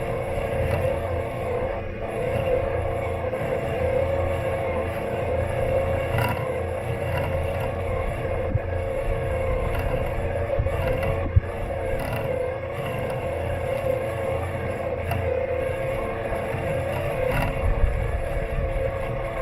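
Robot lawn mower's electric motors running steadily, heard from on board the mower as a held hum over a low rumble. A few sharp knocks come through, the loudest a little past the middle.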